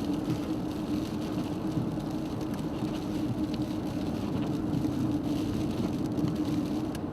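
A vehicle driving, a steady engine drone over a hiss of tyre and road noise.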